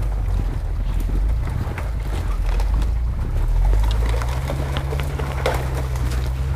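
Suzuki Escudo's engine working hard as it pushes up a snowy slope into brush, its revs stepping up about four seconds in, with scattered crackling clicks over it.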